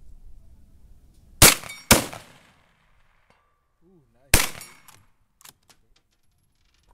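Scoped rifle fired from a bipod at a shooting bench: loud, sharp shots, two about half a second apart and a third near the middle, each with a short ringing tail, followed by a few light clicks.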